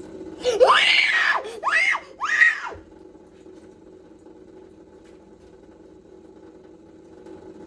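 A child's high-pitched squeals, three in quick succession, each rising and then falling in pitch, followed by a low steady background hum.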